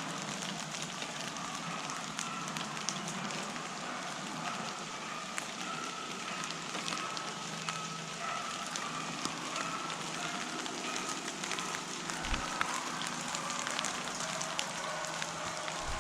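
Rain pattering steadily, a constant hiss full of small ticks from individual drops, with a couple of dull low bumps near the end.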